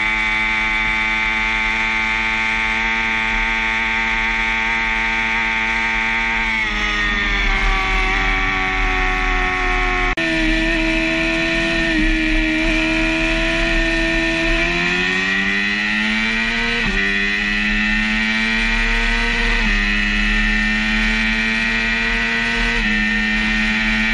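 BMW S1000RR inline-four motorcycle engine at high speed under hard acceleration, over wind noise. It runs at a steady pitch at first, then climbs in pitch with a sharp drop at each upshift, about three times in the second half.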